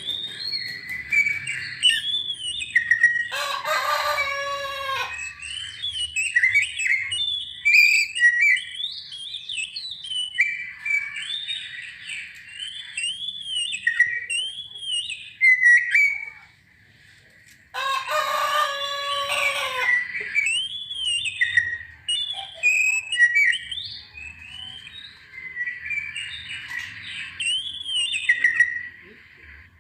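Oriental magpie-robin (kacer) singing: a run of varied whistled phrases that rise and fall, repeated with brief pauses. Two longer, harsher, buzzy calls cut in, about 3 seconds and 18 seconds in.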